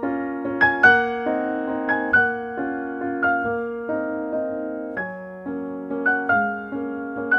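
Solo piano music: single struck notes, a melody line over a repeating lower accompaniment.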